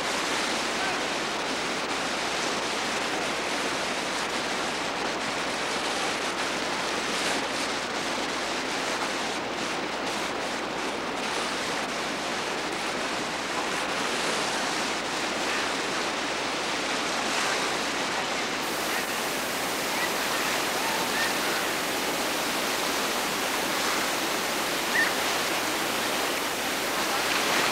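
Steady rush of whitewater rapids, with a short high-pitched sound near the end.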